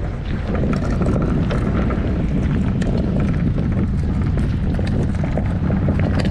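Red plastic sit-on-top kayak hull dragged over shell-covered rock, a continuous scraping rumble with many small clicks of shell, with wind buffeting the microphone.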